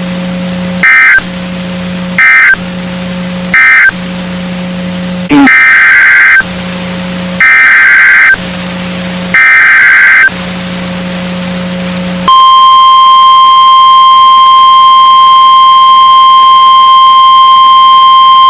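Emergency Alert System SAME data bursts on NOAA Weather Radio: three short end-of-message bursts close the previous severe thunderstorm warning, then three longer, roughly one-second header bursts announce the next. About twelve seconds in, the steady single-pitch 1050 Hz weather radio warning alarm tone starts and holds. A low receiver hum fills the gaps between bursts.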